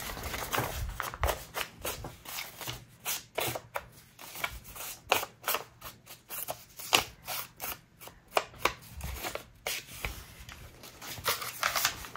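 Paper being handled at a crafting table: a run of short, crisp rustles and clicks at an uneven pace, several a second.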